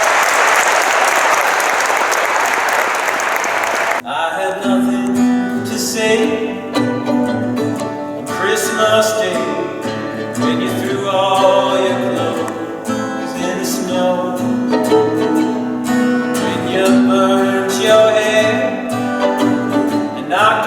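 Audience applauding, then an abrupt cut about four seconds in to live music: guitar with sustained melodic string tones.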